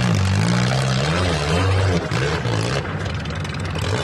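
Engine of a Suzuki Samurai-type small 4x4 revving hard under load as it climbs a steep rocky slope, its pitch rising and falling several times.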